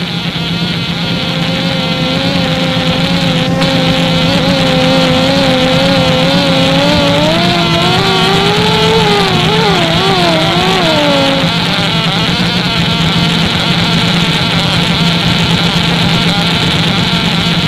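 Science-fiction machine sound effect for a suspended-animation chamber being run: a steady, loud electric hum and hiss. Over it a wavering tone starts about a second in, climbs, warbles and then stops about two-thirds of the way through.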